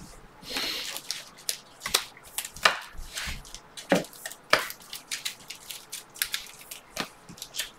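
A stack of trading cards being handled and squared up by hand on a table mat: an irregular run of light clicks and taps, with a short swish of cards sliding about half a second in.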